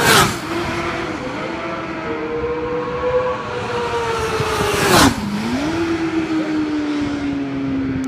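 Sport motorcycles passing close at racing speed, twice: once right at the start and again about five seconds in. Each pass is a loud rush with the engine pitch dropping sharply as the bike goes by. Between the passes, the engines of other bikes on the circuit run through the gears.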